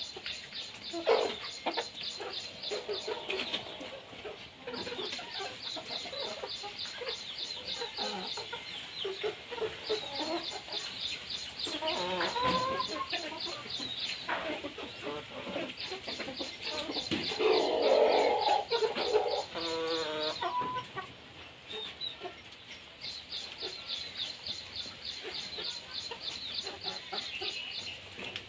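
Chickens clucking and calling, with a louder flurry of calls about two-thirds of the way through. A high, fast, even chirring comes and goes in spells of a few seconds.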